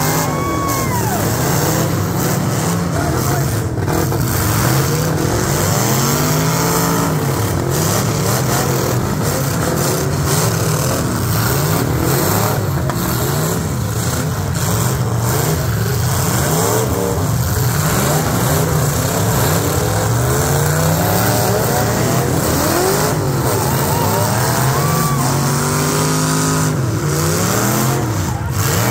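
Several demolition derby cars running hard together, their engines revving up and down over and over in overlapping rising and falling pitches, with a few sharp knocks.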